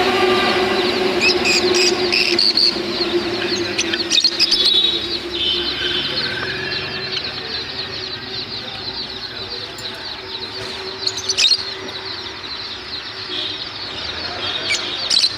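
A group of small cage birds (budgies, lovebirds and Java finches) chattering and chirping continuously in quick, high twitters. A steady low hum underlies the first few seconds and fades out about halfway through.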